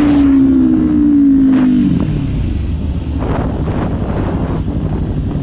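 Kawasaki Ninja 400 parallel-twin engine running on the move, its note sinking steadily for about two seconds as the bike slows. The engine note then fades under wind rush and road noise, with a few short gusts of wind on the microphone.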